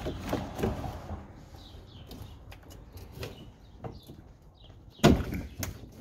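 Hands working on a pickup's door handle and wiring inside the steel door: scattered light clicks and knocks of plastic and metal, with one loud knock about five seconds in.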